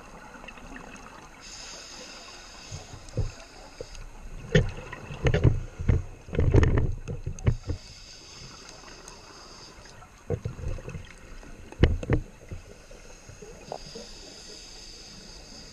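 Scuba diver breathing through an open-circuit regulator: hissing inhales alternate with loud bursts of bubbling as exhaled air leaves the exhaust valve.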